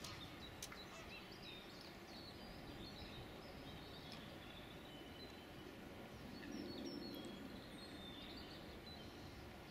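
Faint outdoor background noise with scattered short, high chirps of small birds in the distance, and a soft low swell about two-thirds of the way through.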